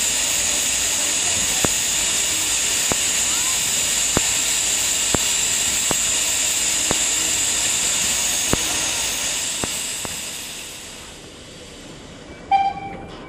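A Henschel D h2t steam tank locomotive blowing steam from its cylinder drain cocks: a loud, steady hiss with faint ticks about once a second, dying away about ten seconds in. Near the end comes one brief, sharp high squeak, the loudest moment.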